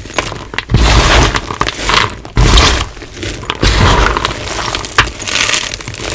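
Hard, dyed blocks of gym chalk crunching and crumbling as they are crushed. There are three heavy crunches, each with a dull thud, in the first four seconds, then lighter crackling and snapping.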